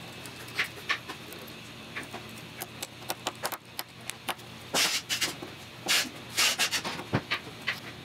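Screwdriver driving small screws through a mechanical endstop board into a wooden frame: a run of short clicks and scraping turns, busiest and loudest in the second half.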